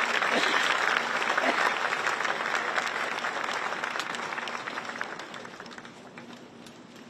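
Audience applause, many hands clapping, dying away over the last couple of seconds.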